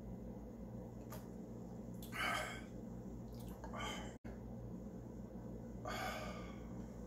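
A man sighing out loud in breathy exhales: a strong one about two seconds in, a shorter one around four seconds and another near six seconds, over a steady low electrical hum.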